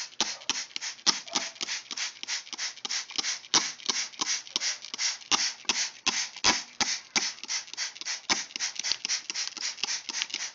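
Plastic trigger spray bottle pumped rapidly, a steady run of short hissing spritzes about four or five a second, misting water onto peat moss and perlite mix to moisten it.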